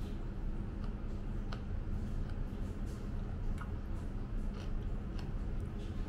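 Chewing a mouthful of spicy salad, with a few faint, scattered crunchy clicks, over a steady low room hum.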